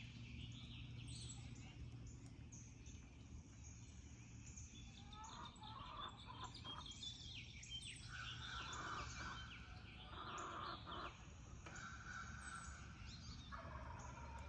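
Wild turkey gobblers gobbling in the distance several times, each call about a second long, amid constant songbird chirps and calls, over a steady low background hum.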